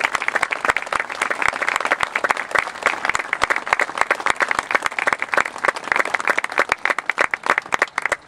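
Crowd applauding: many people clapping, the claps thinning out near the end.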